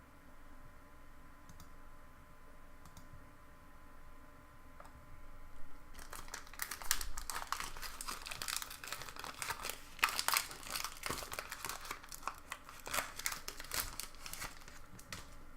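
Foil booster pack wrapper crinkling and tearing as it is opened, starting about six seconds in as dense, rapid crackling. Before that, only a faint room hum with a few light clicks.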